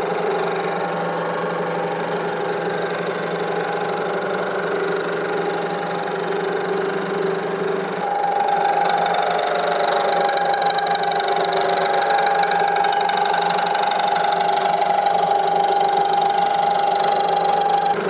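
Bridgeport milling machine running at about 600 RPM, its end mill slowly cutting brazed buildup on a cast iron part. It makes a steady machine whine that grows louder and higher about eight seconds in.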